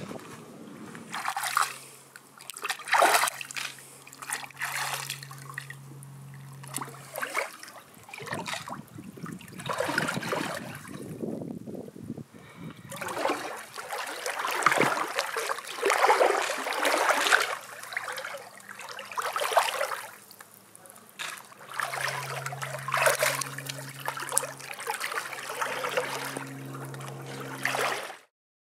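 Pool water splashing and sloshing in irregular surges as a clothed person moves and swims through it. A low steady hum comes in near the start and again near the end. The sound cuts off abruptly just before the end.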